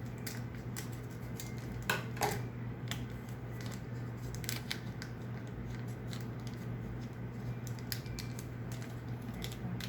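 Scissors cutting open the foil wrapper of a trading-card booster pack: a run of small snips, clicks and crinkles, with two sharper snips about two seconds in.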